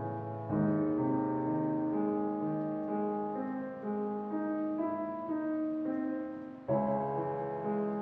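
Soft background piano music: sustained chords, with a new chord struck about half a second in and another near the end.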